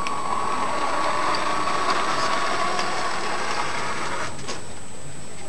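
Electric motor and gears of a 1:14 scale radio-controlled truck whining steadily, swelling in the middle and stopping about four seconds in.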